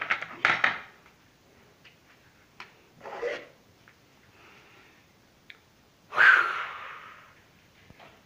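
Handling noises: a plastic toy truck knocked and rolled on a wooden table in a quick clatter. A scrape or rustle follows about three seconds in, then a louder short rushing sound about six seconds in that fades over a second.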